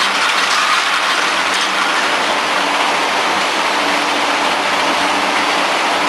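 Silk cross-reeling machine running with a steady, even whir and hiss, at an unchanging level.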